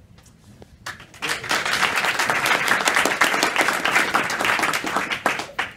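Audience applauding: a few scattered claps, then full clapping from about a second in that dies away near the end.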